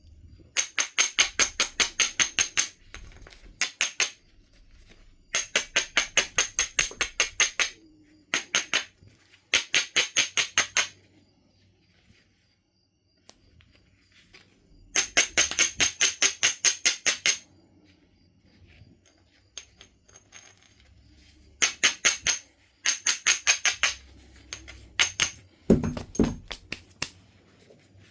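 Flint edge being rubbed with an abrading stone in quick back-and-forth strokes, about eight a second. The strokes come in runs of one to two seconds with pauses between, grinding the edge to prepare platforms for flaking. A few heavier knocks come near the end.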